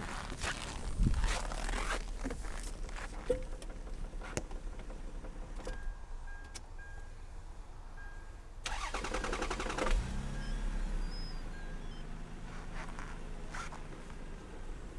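A Lexus RX300's 1MZ-FE 3.0 V6 running at idle with irregular knocks, and a dense burst of rapid ticking about nine seconds in. The knocking comes from a cracked flywheel.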